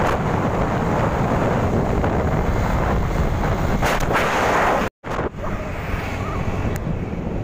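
Wind buffeting the microphone of a camera on a moving scooter: a loud, steady rumbling rush, with the scooter's running drowned beneath it. The sound cuts out for a split second about five seconds in, then picks up again.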